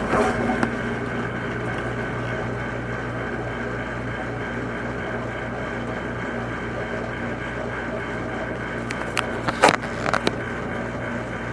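Dishwasher running: a steady motor hum under a constant wash noise, with a few sharp knocks about nine to ten seconds in.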